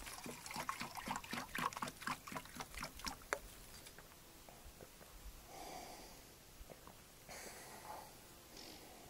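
Water glugging out of a plastic canister into a metal mug for about three seconds, then fainter sounds of drinking and breathing out.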